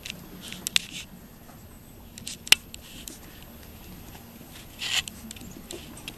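Seven-week-old Yorkiepoo puppies scrabbling close by on wooden deck boards: light ticking and scratching of small claws and soft scuffling, with a sharp click about two and a half seconds in and a short rustle near the end.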